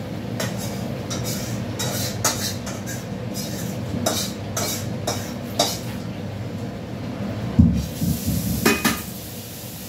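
Metal spoon scraping and clinking in a metal cooking pot while stirring, a short stroke every half second to a second, over a steady low rumble. A heavy knock about three-quarters of the way through, followed by a few lighter clinks.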